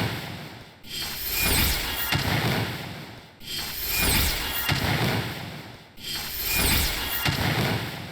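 A short, noisy, rasping sound effect played in a loop. It restarts suddenly about every two and a half seconds, then swells and fades each time.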